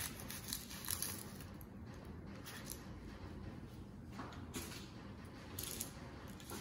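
Quiet kitchen handling sounds: a few light knocks in the first second, then two brief rustles later on, as an onion and a knife are handled and set down on a cutting board.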